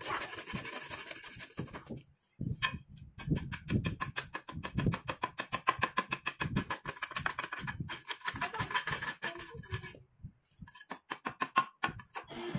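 A steel cleaver chopping and shaving a wooden stick in quick repeated strokes, several a second, with two short pauses, about two seconds in and about ten seconds in.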